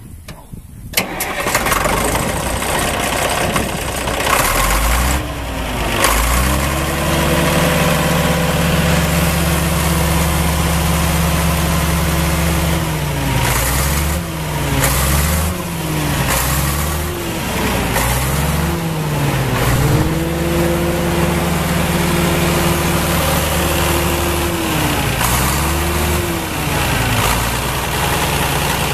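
Caterpillar D5 bulldozer's diesel engine starting: a loud cranking noise begins about a second in, the engine catches about five seconds in and settles into a steady run. Its speed dips and climbs back several times.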